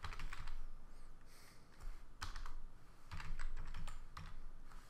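Typing on a computer keyboard: irregular keystrokes in a few short runs as a word is typed.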